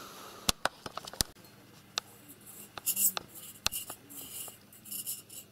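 Scattered sharp clicks and taps with scratchy rustling: a cat clambering onto a stack of books and papers and pawing at a desk lamp.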